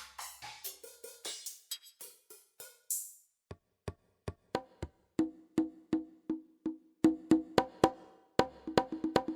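Yamaha DTX700K electronic drum kit played through one of its unusual sounds: a run of short, clicky struck hits, first a quick varied cluster, then evenly spaced at about three a second, some carrying a clear pitch.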